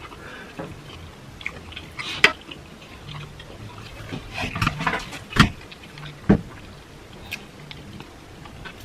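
Close-up eating sounds from a person eating rotisserie chicken: irregular wet chewing and lip-smacking clicks, with a few louder sharp ones.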